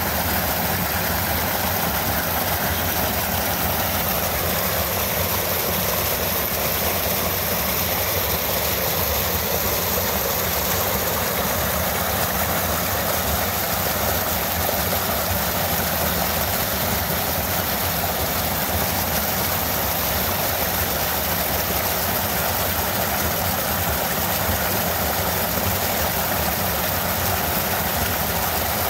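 Small waterfall in a mountain creek, water pouring over a log into a pool with a steady, unbroken rush.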